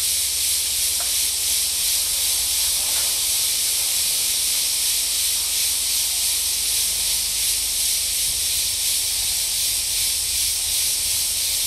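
A steady, high-pitched chorus of cicadas buzzing in the trees, unbroken throughout, with a low rumble underneath.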